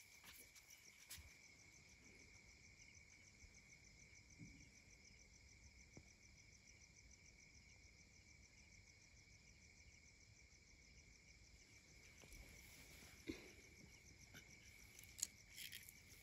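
Faint, steady chirring of crickets, with a few soft knocks here and there.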